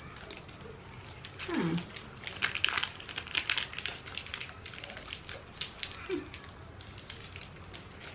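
Scattered crackles and small clicks from snack bars being handled and eaten, busiest in the first half, with a short falling 'mm' about a second and a half in.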